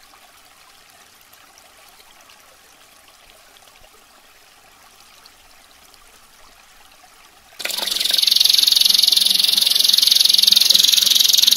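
A quiet trickle of running water, then, about three quarters of the way through, a domestic canary suddenly starts singing loudly in dense, rapid rolling trills, very high-pitched.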